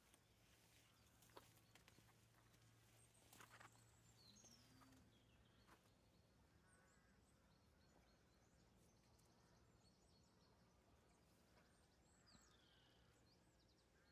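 Near silence: faint outdoor quiet with a few brief, faint bird chirps and a couple of soft taps in the first few seconds.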